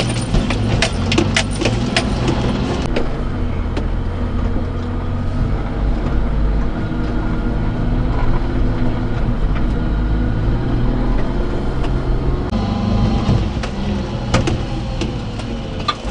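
Daihatsu Hijet mini-truck's 660cc carbureted three-cylinder engine running steadily as it crawls over rough off-road ground, heard from inside the cab. Knocks and rattles from the truck over bumps come thickest in the first few seconds and again near the end.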